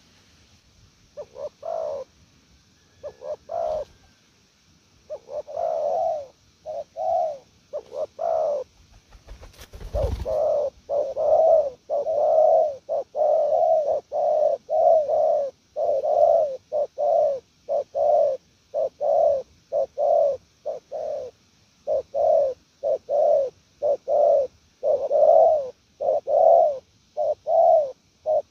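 Spotted dove cooing in short, rapid repeated coos: a few scattered coos at first, then an unbroken run of a little over one coo a second from about ten seconds in. A single sharp knock sounds about ten seconds in.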